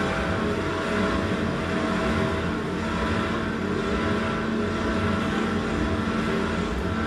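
Steady, dense rumbling drone with a few held tones above it, engine-like in character: an electronic or industrial soundscape playing as the score for the dance.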